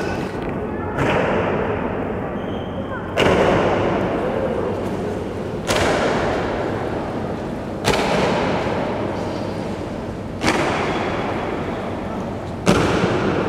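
Honour guard's boots stamping in unison in a slow ceremonial march step, six heavy stamps about two and a half seconds apart, each ringing out in a long echo in the large hall.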